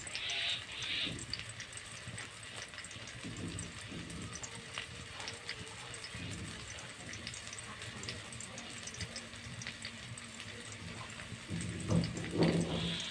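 Food frying in a pan: a steady, even sizzling hiss with scattered faint crackles, and a couple of brief louder hisses near the start and again near the end.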